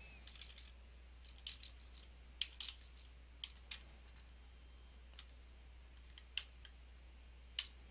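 Faint, scattered single key presses on a computer keyboard: about a dozen sharp clicks at irregular intervals rather than continuous typing, over a steady low electrical hum.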